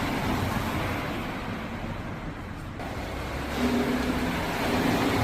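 A car driving slowly across a parking garage floor, its engine and tyre noise growing louder about three and a half seconds in. There is no clunk as it crosses the repaired concrete floor slabs: the sealed joints no longer knock under the wheels.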